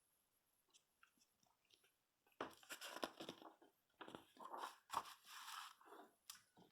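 Faint, irregular rustling and crackling of paper as the pages of a printed plumbing catalog are handled and turned, starting about two and a half seconds in.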